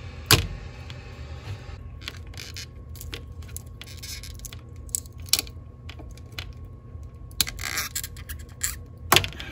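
Handling noise from a large electrolytic capacitor and its wiring being worked against the metal housing of a class D amplifier board. A sharp click comes just after the start, then scattered taps, clicks and brief scrapes, and a stronger click near the end, over a low steady hum.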